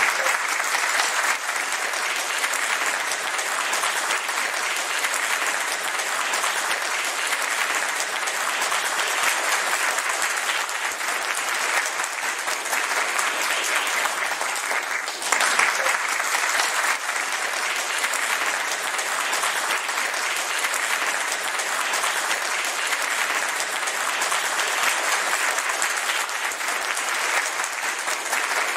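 Audience applauding steadily and without a break: many hands clapping together.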